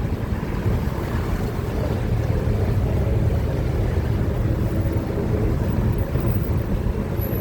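Steady low rumble of motor traffic, with no clear single event standing out.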